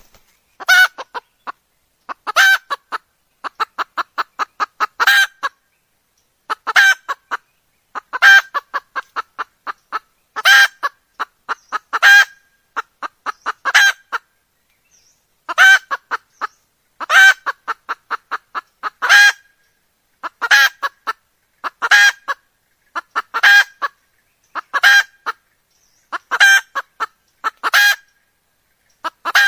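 Female red junglefowl cackling: runs of short, quick clucks that lead into a loud, longer squawk, repeated every one and a half to two seconds. It is the call of a hen ready to mate, used as a lure to draw cock junglefowl.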